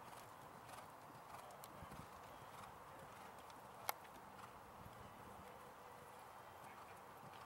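Faint, soft hoofbeats of a grey Oldenburg gelding trotting on sand arena footing, with one sharp click about four seconds in.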